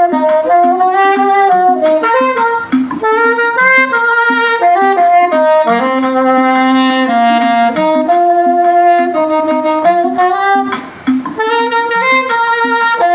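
Saxophone playing a slow hymn melody in long held notes.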